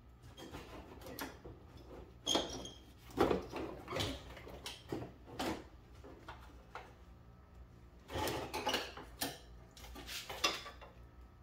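Irregular knocks, clunks and scraping of a rusty Nissan R50 Pathfinder front fender being worked loose and pulled off by hand, with the louder clatters a couple of seconds in and again about eight seconds in.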